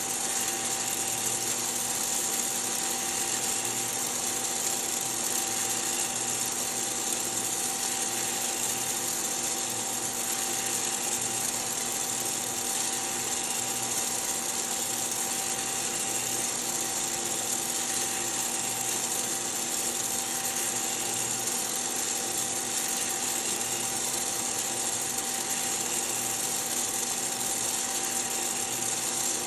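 Hottop home coffee roaster in its cooling cycle: the cooling fan and stirring-arm motor run with a steady whirring hum and airy hiss while the arm sweeps the freshly roasted beans around the cooling tray.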